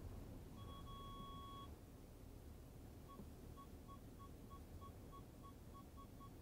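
Mercedes car's parking-sensor warning beeping as the car creeps up to an obstacle: one held beep of about a second, then from about halfway a run of short beeps about three a second, quickening slightly near the end. A low engine hum sits underneath.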